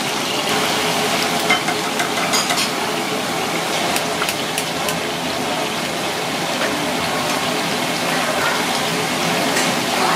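Hot oil sizzling steadily in a frying pan, with a few light taps and clicks as minced garlic and then cubes of butter go into the pan.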